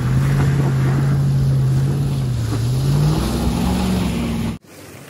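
Hummer H2's V8 engine pulling through mud, holding a steady note, then dipping and rising in pitch as it accelerates away. The sound cuts off suddenly near the end.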